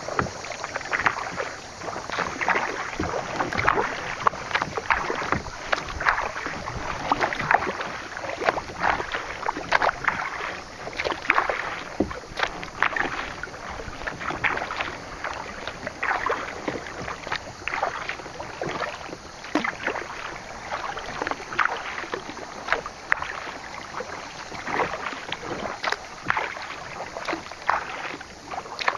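Kayak paddling: the paddle blades dipping and splashing in the water stroke after stroke, with a steady patter of small splashes and drips.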